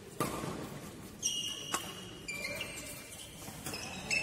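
Badminton rackets striking the shuttlecock in a fast doubles rally: about five sharp hits, roughly a second or less apart, with high-pitched squeaks of court shoes on the floor between them.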